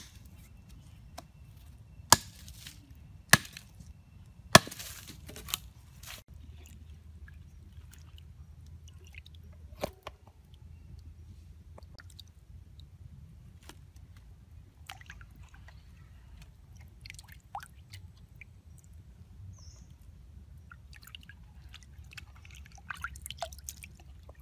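A small hatchet chopping a green bamboo pole against a wooden log: a few sharp strikes in the first five seconds, one more near ten seconds. Later, only faint wet rustling and small clicks as cut raw potato sticks are handled.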